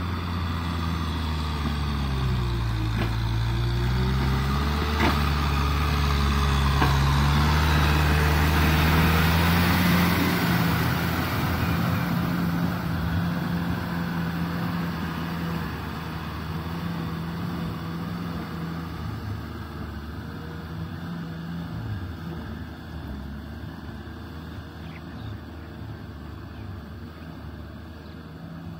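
Kubota M6040SU tractor's four-cylinder diesel engine running under load as it pulls a rotavator churning through wet paddy mud. The engine note dips briefly a couple of seconds in and recovers. The sound is loudest as the tractor passes close, about ten seconds in, then fades steadily as it moves away.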